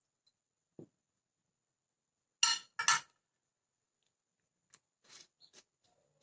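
A soft knock, then two sharp clinks of a metal spoon against a glass baking dish about half a second apart, followed by a few faint small clicks near the end.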